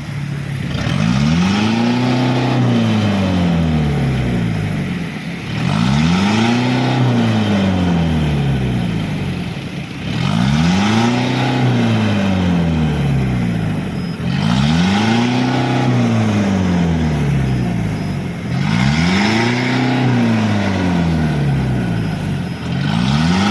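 Diesel vehicle engine revved up from idle and let fall back, six times about every four and a half seconds: the repeated free-acceleration throttle snaps of a smoke-opacity emission test.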